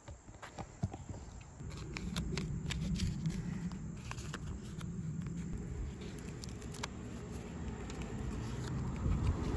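Paper backing of a vinyl decal crinkling and crackling in the hands as it is handled and peeled, in irregular sharp clicks, over a low steady hum that comes in about two seconds in.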